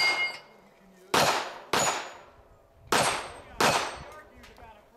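Pistol-caliber carbine shots: one at the start, two quick pairs about half a second apart, and another at the end, each a sharp crack with a short tail. Some are followed by the brief metallic ring of a struck steel target.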